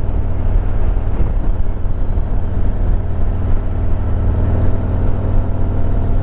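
Harley-Davidson Road Glide Limited's Milwaukee-Eight V-twin engine running steadily while the motorcycle cruises at an even speed, with a constant rushing noise over it.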